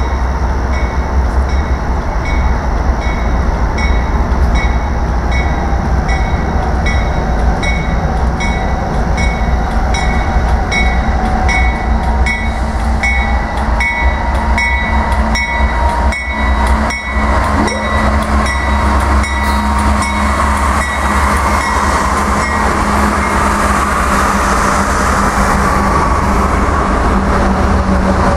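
BNSF freight train led by GE diesel locomotives approaching and passing, engines rumbling steadily. A bell dings about twice a second through the first two-thirds, and wheels clatter over the rail joints as the locomotives go by.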